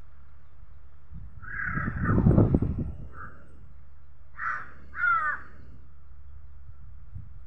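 Crows cawing: about four short caws, the last two close together around four and five seconds in. A louder low rumbling noise runs between about one and three seconds in.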